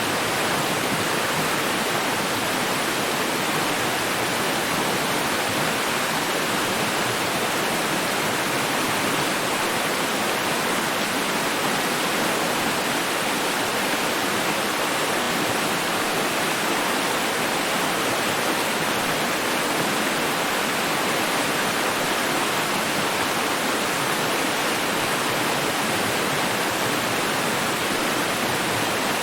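Running water: a steady, even rush of water with no change in level or character.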